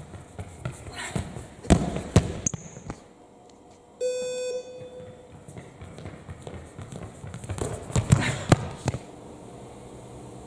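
Running footsteps and ball thuds on a sports-hall floor, with sharp impacts about two seconds in and again near eight seconds. About four seconds in, a short horn or buzzer tone sounds for under a second.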